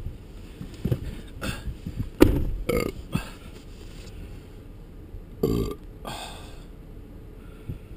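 A string of short knocks and rustles inside a vehicle's cab. About five and a half seconds in comes a low, throaty sound from a person's voice, and a second one right after it.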